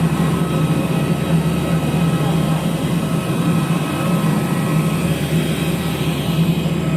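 Airliner engines running, heard as a steady drone with faint whining tones inside the passenger cabin after landing.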